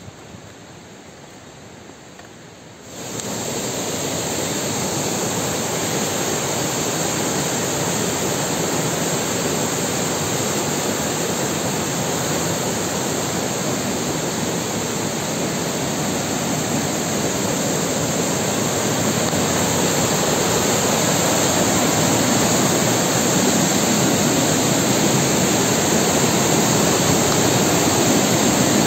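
Loud, steady rush of a waterfall and fast-flowing stream, starting suddenly about three seconds in after a quiet stretch and growing slightly louder near the end.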